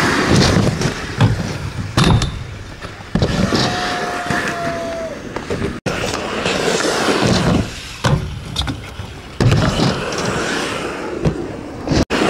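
Skateboard wheels rolling over rough asphalt close to the microphone, a rumbling rush broken by several sharp clacks and knocks of the board. A brief thin squeal comes about four seconds in, and the sound cuts out for an instant twice.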